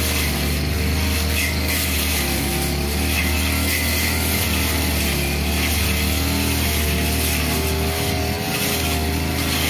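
Backpack-mounted 328 two-stroke brush cutter running at working speed, its blade cutting through tall grass. The engine note holds steady with a slight wavering in pitch as the load changes.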